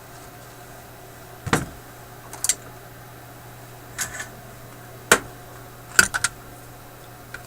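Sharp clicks and clacks of small metal hand tools being handled at a workbench during capacitor replacement in a tube radio, about six separate knocks with the last three close together, over a steady low hum.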